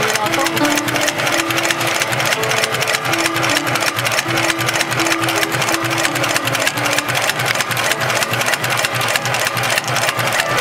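HighTex 71008R computerized heavy-duty bar tacker sewing a bar tack through a climbing rope to form a sewn eye: a rapid, even clatter of needle strokes at a steady pace.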